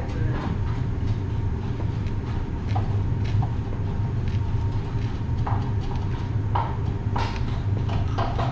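Chef's knife chopping green leaves on a cutting board: scattered, irregular knocks, coming more often in the second half, over a steady low hum.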